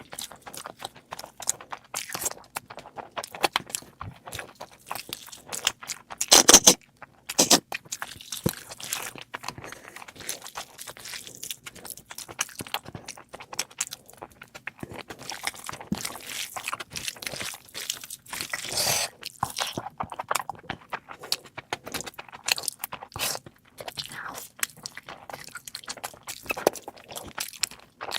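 Close-miked eating of meat curry: steady wet chewing and crunching bites, with two louder crunches about a quarter of the way in.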